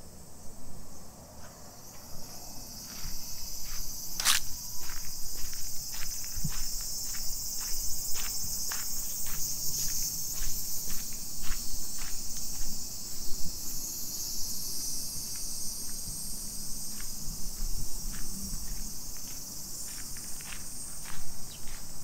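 A steady, high chorus of summer cicadas, with a walker's footsteps on a dirt path at about two steps a second from about two seconds in. One sharper click sounds about four seconds in.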